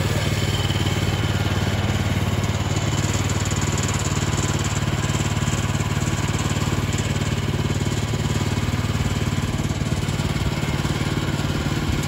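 Engine of a Woodland Mills portable bandsaw mill running steadily, driving the band saw as the saw head is worked along a log.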